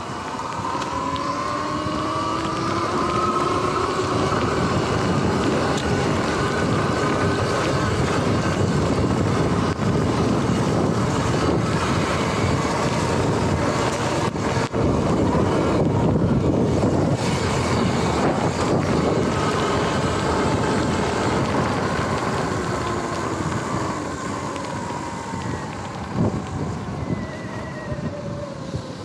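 Sur-Ron electric dirt bike's motor whining: its pitch climbs as the bike speeds up in the first few seconds and falls as it slows near the end. Steady wind noise on the microphone and tyres rolling through wet grass run under it.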